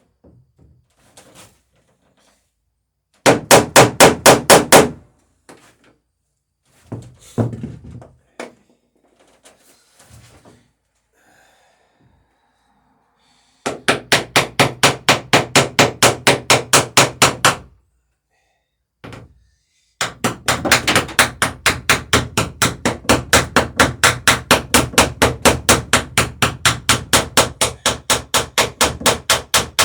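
Hammer rapidly peening rivets over their burrs on the lapped wooden planking of a boat hull, in runs of quick, even strikes at about five a second. A short run comes a few seconds in, a longer one about halfway through, and a long steady run fills the last third.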